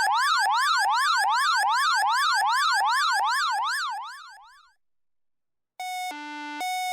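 Synthetic electronic alarm siren: a single tone sweeping rapidly up and down, about two sweeps a second, fading out about four seconds in. After a second of silence, a run of steady electronic tones in changing pitches starts near the end.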